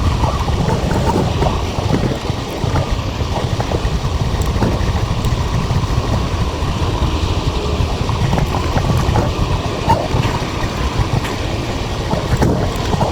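Wind buffeting an action camera's microphone while riding a bicycle: a steady low rumble with a hiss above it, sprinkled with small clicks and rattles.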